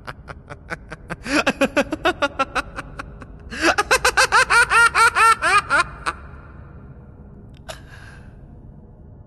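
The Joker's laugh: a run of quick "ha ha" laughs that builds into a louder, higher cackle and breaks off about six seconds in. A brief sharp sound follows near the end.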